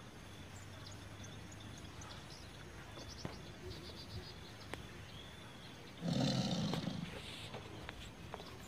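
A tiger roar, played as an added sound effect, about six seconds in and lasting a little over a second, over faint forest ambience with scattered small chirps.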